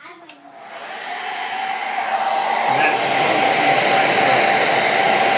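Handheld hair dryer switched on, its fan spinning up over the first couple of seconds, then blowing steadily with a high whine over the rushing air.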